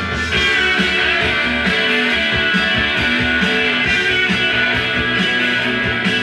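Music with guitar played from a vinyl record on a Dual 1245 turntable fitted with a Shure V15 Type III cartridge, heard from the room.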